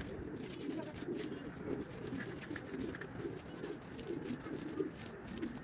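Doves cooing over and over, with soft scrapes and taps from a hand smoothing a wet mud-plastered floor.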